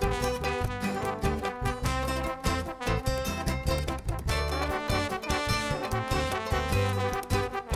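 Background music: an upbeat swing-style tune with brass instruments and a steady beat.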